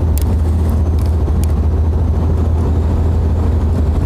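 Jeep driving, heard from inside the cabin: a steady low drone of engine and road noise, with a few short clicks in the first second and a half.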